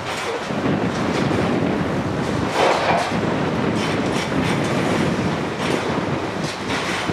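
Balfour Beatty track-laying machine working: steady mechanical running with continual irregular clanking and clattering, louder for a moment about three seconds in.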